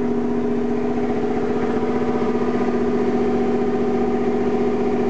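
A carbureted 1982 MerCruiser 5.7-litre 260 hp V8 marine engine running steadily on a test stand, at an even, unchanging speed.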